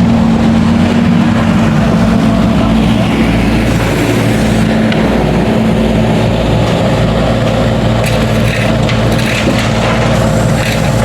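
Excavator's diesel engine running steadily under load while it digs up the old road surface, with a few cracks and knocks of broken material in the last few seconds.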